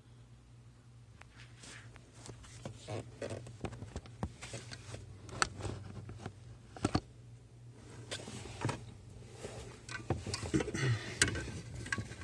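Scattered clicks, light knocks and scraping from handling a metal pedal bracket and parts under a car's dashboard, getting busier after the first second or two. A low steady hum runs underneath.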